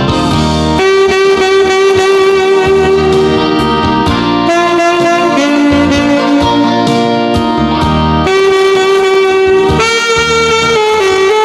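Alto saxophone playing a slow ballad melody in long held notes, a new note every second or few seconds, over a backing accompaniment.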